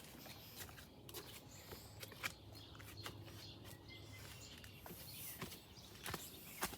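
Faint outdoor ambience: a low steady hum with scattered light clicks and ticks.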